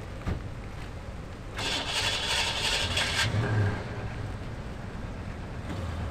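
Classic car engines running at idle in a low, steady rumble. A loud rushing hiss cuts in for about a second and a half near the middle.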